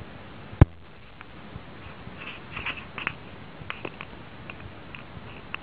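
A cat playing on a rug: one sharp knock about half a second in, then light scattered ticks and scratches of paws and claws.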